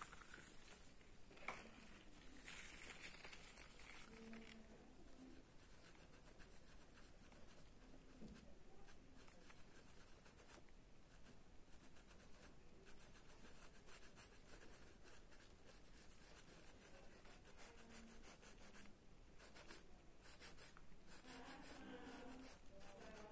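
Faint scratching of a pencil shading on paper, with one light tap about a second and a half in.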